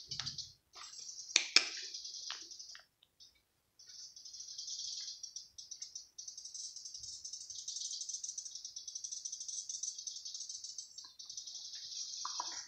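Insects, likely crickets or cicadas, making a continuous high, rapidly pulsing rattle that drops out briefly about three seconds in. A couple of sharp clicks about a second and a half in.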